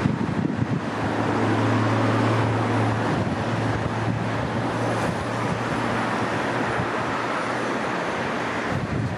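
Road traffic passing steadily on a multi-lane highway, a continuous rush of tyres and engines. A low engine hum stands out from about a second in and fades after the middle.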